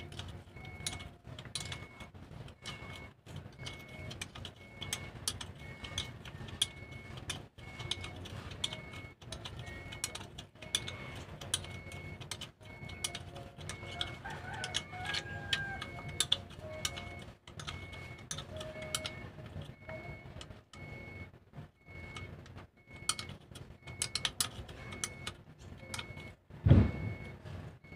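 Hand wrench clicking and tapping against metal as the fittings of a newly fitted secondary clutch master cylinder are tightened, in many short irregular clicks. One louder thump near the end.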